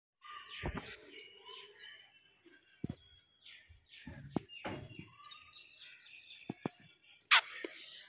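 Alexandrine parakeet chirping and chattering in short, high calls, with a few sharp knocks and one loud harsh burst a little before the end.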